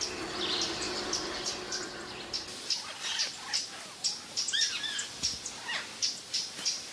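Forest birds chirping and calling: a steady run of short, high chirps, with a few arching, rise-and-fall call notes around the middle.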